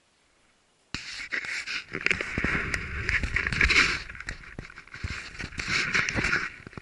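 Dry twigs and brush rustling and crackling close to the microphone, with handling bumps, starting suddenly about a second in and easing off near the end.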